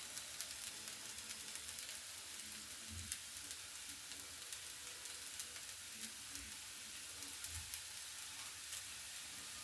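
Food sizzling in a hot pan: a steady frying hiss full of fine crackles, with a few soft low thumps.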